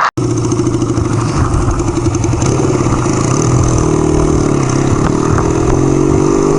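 Motorcycle engine, a 1975 Kawasaki KZ400 parallel twin, running at low, fairly steady revs with small rises and falls in pitch.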